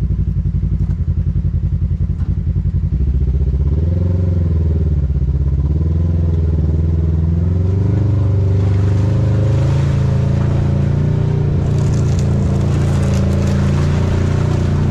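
Kawasaki Teryx KRX 1000's parallel-twin engine heard from inside the cab, pulsing at low revs for the first few seconds, then revving up and rising and falling as the machine drives on. In the second half tyre and trail noise grows, with a few sharp rattles and knocks.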